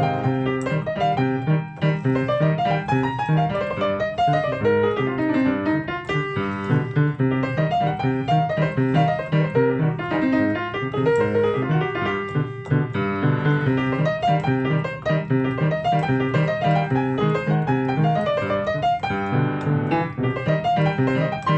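Upright piano playing a salsa piece: a repeating low bass figure under rising and falling runs in the right hand, which come back about every two seconds in a steady rhythm.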